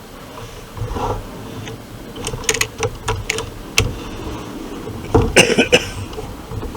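Air rifle being handled between shots: a run of sharp mechanical clicks about two to four seconds in, then a tight cluster of clicks and rattles about five seconds in.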